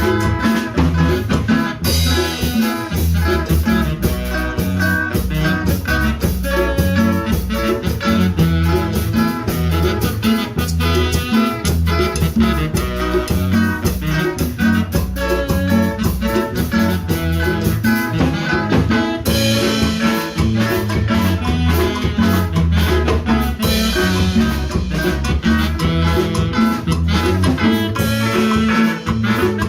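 A band playing upbeat Latin dance music in the salsa style, with a steady rhythm throughout; the sound grows brighter about two seconds in.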